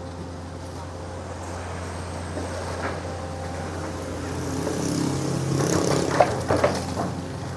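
Excavator diesel engine running steadily, its note rising and getting louder past the middle as it works under load, with a couple of sharp knocks about six seconds in.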